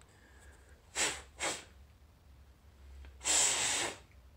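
Breath blown hard by mouth through a small solenoid valve part to clear out grime: two short puffs, then one longer blow near the end.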